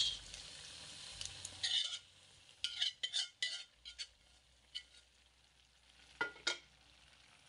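Chopped garlic and onion scraped from a skillet into a pot of simmering pork igado, then stirred with a metal spoon: scraping and clicking of the utensil against the pans, over a faint sizzle. It opens with a brief loud hiss and ends with two sharp knocks of the spoon on the pot.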